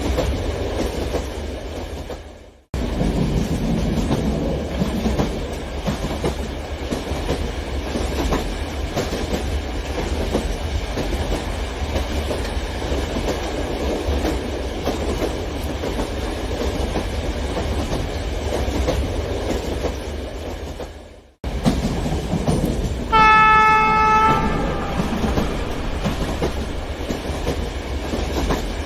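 Model train running on its track with a steady rolling clatter, fading out and cutting back in twice. About three-quarters of the way through, a horn sounds once for about a second and a half, the loudest sound.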